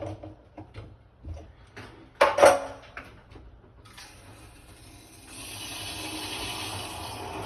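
A few light clicks and a loud clunk about two seconds in, then water starting to rush through the newly installed water meter and its supply pipe, growing louder about five seconds in as the line is reopened and refills under pressure.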